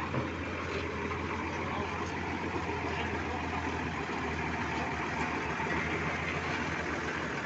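Road roller's engine running steadily.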